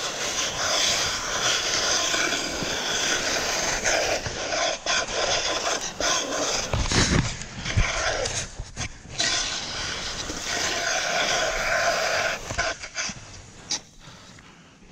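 Snow glissade: a continuous scraping hiss of a body and clothing sliding fast down a steep snow slope, with a couple of low thumps about halfway through, dying away about two seconds before the end as the slide comes to a stop.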